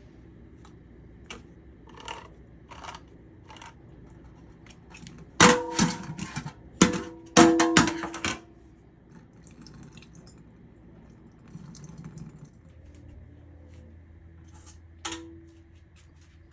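Kitchen clatter: metal kitchenware knocking and clinking, with a dense run of loud ringing clanks about five to eight seconds in and one more ringing knock near the end, while tuna is drained and ingredients are readied for the mixing bowl.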